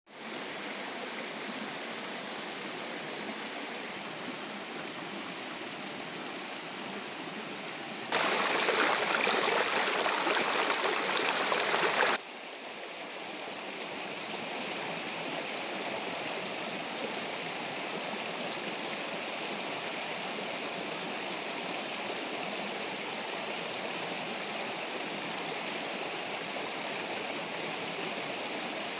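Shallow rocky forest stream running: a steady rush of water. For about four seconds, a third of the way in, the rush is louder and brighter, starting and stopping abruptly.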